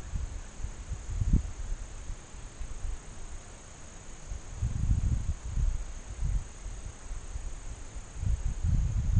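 Steady high-pitched chorus of crickets, with bursts of low rumble about halfway through and again near the end.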